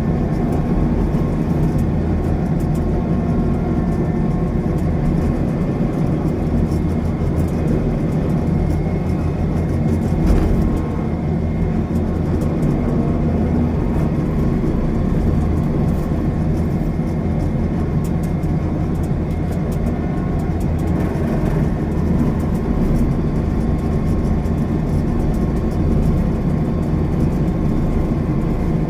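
Rice combine harvester's engine running steadily under load, a continuous low rumble, with one brief knock about ten seconds in.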